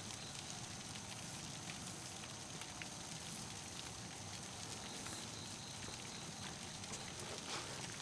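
Quiet night-time outdoor ambience: a steady high-pitched drone over a low background hiss, with faint scattered clicks.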